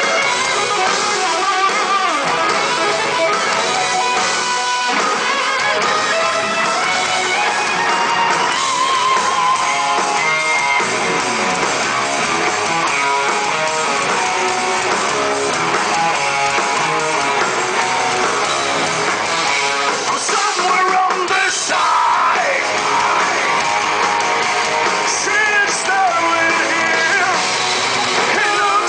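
Heavy metal band playing live, with electric guitars to the fore, loud and unbroken.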